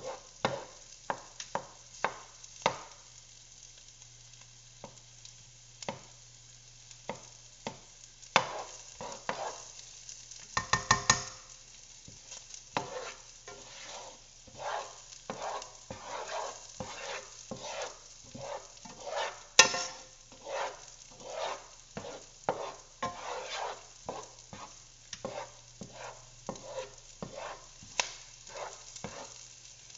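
Diced onions sautéing in melted butter in a pan, with scattered sharp pops and spatters from the hot fat and a spoon stirring and scraping the pan. A quick run of taps about eleven seconds in.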